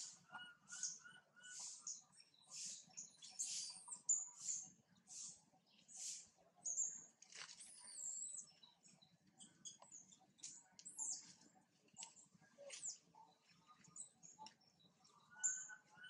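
Faint, high-pitched animal chirps repeating a little faster than once a second, joined in the second half by scattered short whistled notes.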